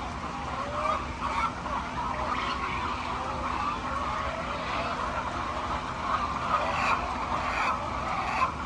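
A flock of hens clucking and calling together, many short overlapping calls in a continuous chorus.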